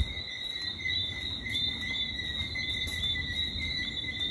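Night chorus of Grenadian frogs: many small frogs calling at once, a dense run of short, high chirping notes over a continuous high ringing that holds steady throughout.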